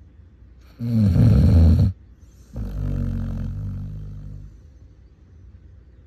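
Basset hound snoring in its sleep: one loud snore about a second in, then a longer, softer snore that fades away.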